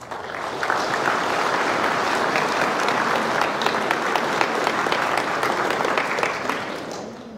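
Audience applauding: many hands clapping together, rising quickly at the start and dying away near the end.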